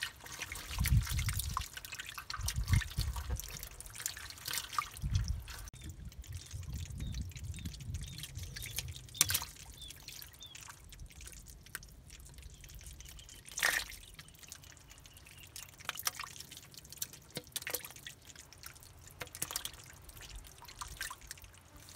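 Fish thrashing and splashing in a shallow pool of muddy water, irregular wet slaps and drips with a few sharper splashes standing out.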